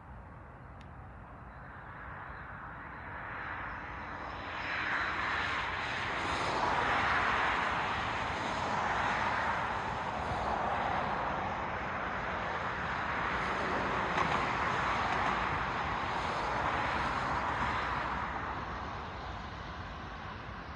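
Passing train: a rushing rumble that builds about four seconds in, swells and fades slowly while it holds, then eases off near the end.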